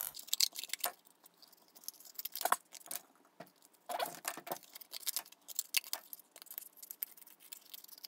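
Scissors snipping through thick corrugated cardboard in short, irregular cuts, with some rustling of the cardboard pieces being handled.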